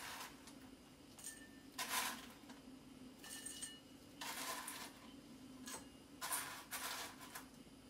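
A spoon scraping and scooping dry crumble in a small stainless-steel bowl and spilling it into glasses, in several short scratchy bursts about a second apart, over a steady low hum.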